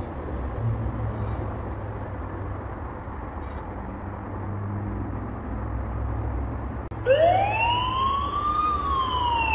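Security camera's built-in alarm siren coming on about seven seconds in: a loud wail that rises in pitch and then begins to fall. Before it there is only a steady low hum.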